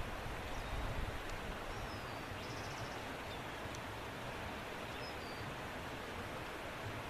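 Steady rush of a flowing mountain river, with a few faint high chirps over it.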